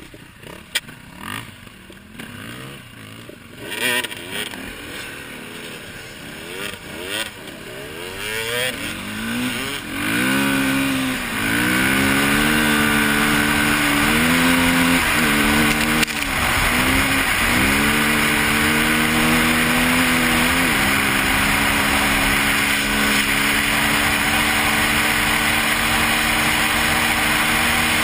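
KTM EXC 450 four-stroke single-cylinder enduro motorcycle, heard from the rider's own bike. It is quieter for the first several seconds with a few knocks, then pulls away revving up and down through the gears. From about two-thirds of the way in it runs steadily at speed under loud wind rush on the microphone.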